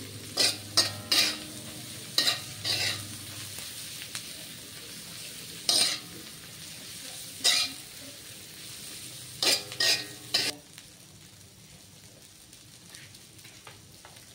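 Cassava leaves stir-frying in oil in a wok, sizzling steadily, while a metal spatula scrapes and turns them in a few short runs of strokes. The stirring stops about ten seconds in, leaving a quieter sizzle.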